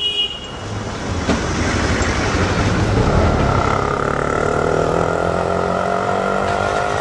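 Street traffic: a brief horn toot right at the start, then a motor vehicle's engine running close by, its steady drone setting in about three seconds in.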